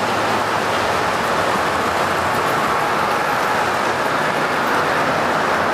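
Gauge 1 (1:32 scale) model passenger train running past on the track, its wheels rolling on the rails with a steady rumble.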